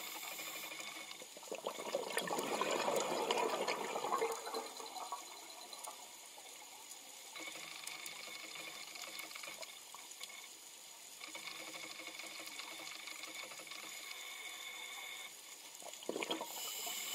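Underwater sound picked up by the camera: a steady watery hiss with faint high steady tones that come and go. It swells into a louder rush of water for a few seconds about two seconds in, and again briefly near the end.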